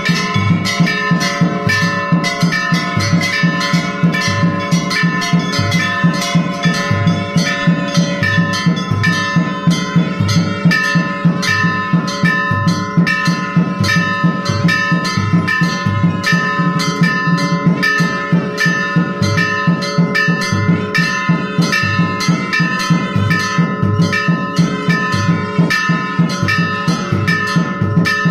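Brass temple bells struck rapidly and without pause, their ringing tones overlapping, over a steady low beat.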